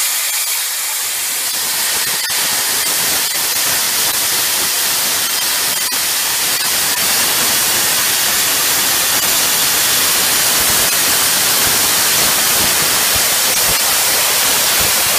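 Hypertherm plasma cutter torch cutting steel plate at a low amperage setting: a loud, steady hiss of the plasma arc and its air blast.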